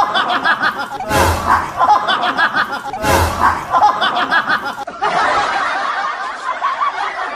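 Edited-in laughing sound effect: a snickering laugh that repeats about every two seconds, each repeat opening with a sharp thump, turning into a denser, steadier stretch of laughter about five seconds in.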